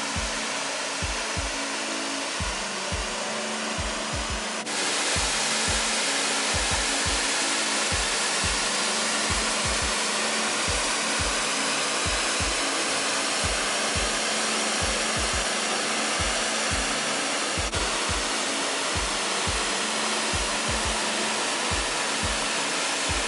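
Waterfall: a steady rush of falling water, louder from about five seconds in, over background music with a steady low beat.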